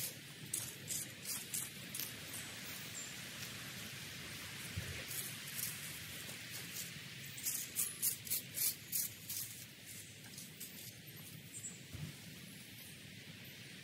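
Garden shears snipping: a few snips near the start, then a quick run of about eight snips, some four a second, around the middle. Wind noise runs underneath.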